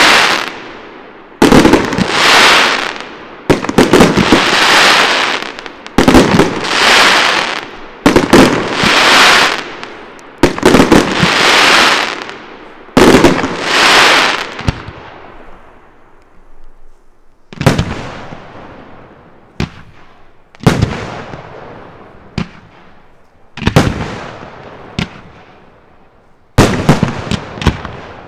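Aerial firework shells bursting one after another, each sharp bang trailing off over a second or two. The bursts come every two to three seconds at first, then fewer and farther apart in the second half.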